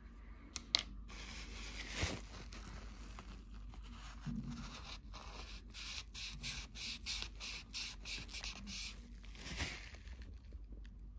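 Paper towel rubbing and wiping over the plastic body of an HO-scale model locomotive: a run of quick scratchy strokes, busiest in the second half, with a few small clicks and knocks.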